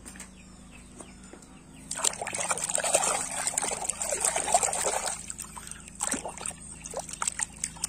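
A hand sloshing and swishing through a tub of foamy soapy water for about three seconds, after a quiet start with a few light clicks, then drips and small splashes.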